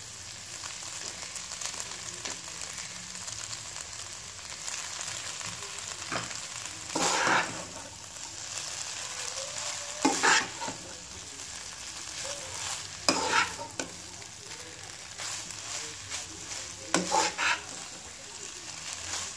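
Spaghetti, shredded chicken and vegetables sizzling in a hot non-stick wok while being tossed and stirred with a spatula. Four louder scrapes of the spatula against the pan come about every three to four seconds over the steady frying hiss.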